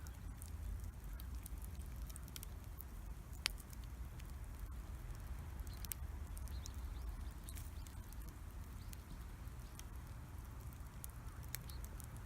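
Wood bonfire crackling: scattered sharp pops and snaps over a low steady rumble, with one louder pop about three and a half seconds in.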